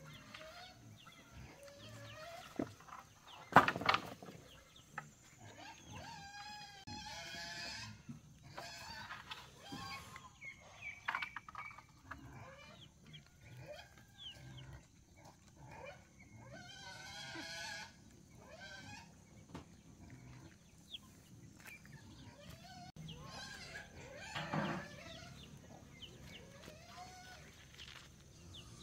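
Farm animals calling on and off, a few drawn-out wavering calls among shorter ones, with one sharp knock about three and a half seconds in.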